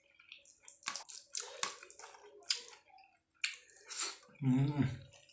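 Close, wet eating sounds of a meal eaten by hand: chewing and lip smacks mixed with fingers squelching rice and curry on a steel plate, a string of short irregular clicks and smacks. A brief voiced murmur comes about four and a half seconds in.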